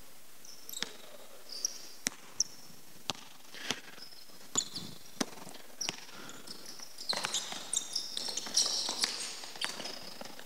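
Basketball dribbled on a hardwood court: single sharp bounces, roughly one every half-second to second. Short high sneaker squeaks on the floor join in and grow busier in the last few seconds, as the players move against each other.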